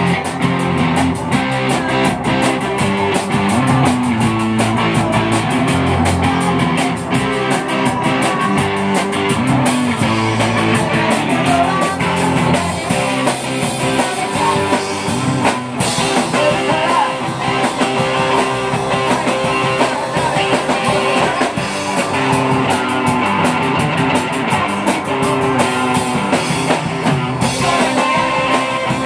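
Live rock band playing: electric guitars strummed over a drum kit, with a singer's voice on top.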